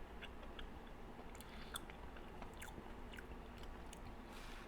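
A person chewing a mouthful of chocolate cake, with faint scattered wet mouth clicks.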